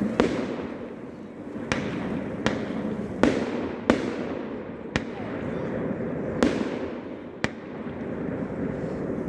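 Fireworks going off: about eight sharp bangs at irregular intervals, roughly one every second, over a continuous rumbling hiss from the ongoing display.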